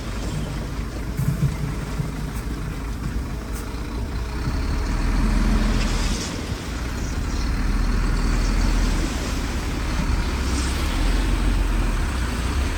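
Heavy diesel earthmoving machinery running, a deep engine rumble that swells and eases with the load. Two short hisses rise over it, about six seconds in and near the end.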